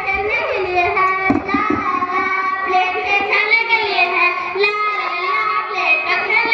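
Children singing a song in high voices, with long held notes that slide up and down in pitch.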